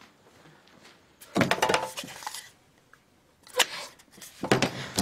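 A few small clicks and clinks from a small wooden object being handled: a quick cluster about a second and a half in, then two short ones near the end.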